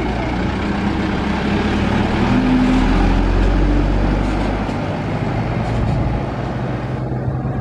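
Large tour bus's diesel engine and road noise as it drives close by, the low engine rumble strongest a few seconds in. The hiss drops away suddenly near the end.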